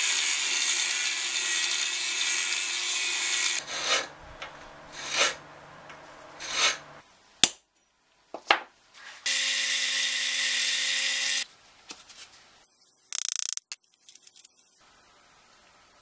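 Angle grinder with a cut-off disc cutting through steel rod for about three and a half seconds, then three short scraping strokes and two sharp hammer blows on steel on an anvil. A power tool runs again for about two seconds, followed by a short whir.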